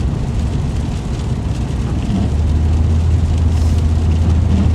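Car cabin driving noise: a steady low rumble from the engine and tyres under a hiss, heard from inside the car. The rumble grows stronger about two seconds in.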